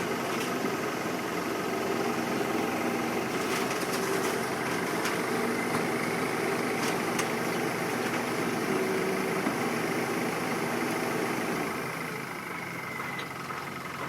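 Mini excavator's diesel engine running steadily at a low idle, with a few faint clicks; it gets quieter near the end.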